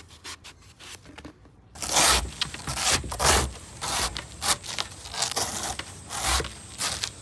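Repeated scraping and tearing strokes of hand food preparation, about two a second, starting about two seconds in after a few faint clicks.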